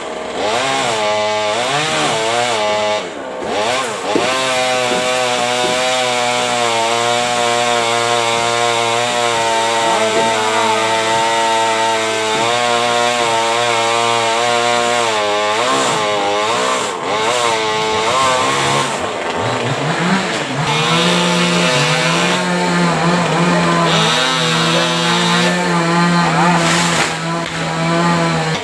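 Chainsaw engine running hard throughout, its pitch rising and falling as it is revved and loaded while cutting the trunk of a coconut palm, with steadier stretches in between.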